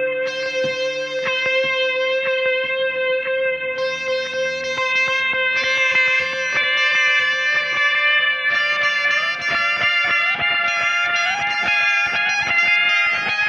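Guitar music: a held low note with changing higher notes over it, the notes climbing in steps in the second half.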